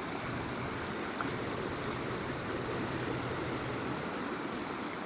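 A flooding creek rushing, heard as a steady wash of water noise.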